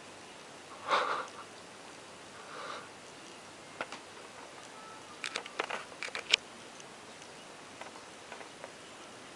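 A cat sniffing close to the microphone, two short breathy sniffs, followed by a quick run of small sharp clicks and taps.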